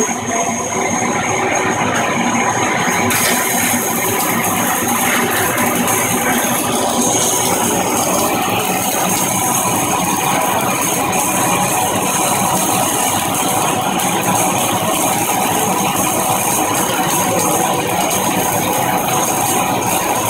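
Stick welding arc burning steadily, with the continuous crackle and hiss of a shielded metal arc electrode; the sound brightens slightly about three seconds in.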